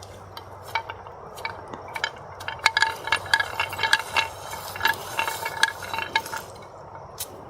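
Cheap novelty smoke fireworks burning on the ground, sizzling with many small sharp crackles, which are thickest in the middle of the stretch.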